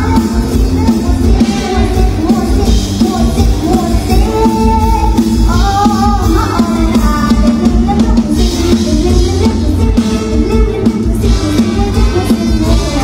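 Live mor lam band music played loud through a concert PA: a young girl sings into a microphone over a steady drum-kit beat and heavy bass.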